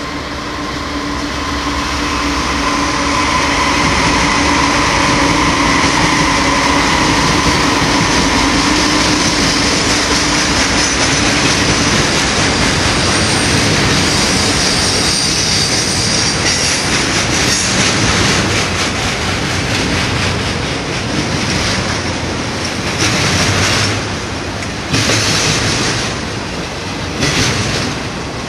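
BNSF diesel locomotives passing with their engines running, then a double-stack container train rolling by with a loud, steady rumble of wheels on rail. A high wheel squeal comes in about halfway through.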